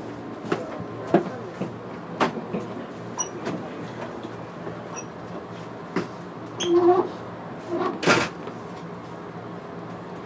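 Inside a JR East 205-series electric train car, onboard equipment hums steadily and low, with scattered knocks and clicks and a louder thump about eight seconds in.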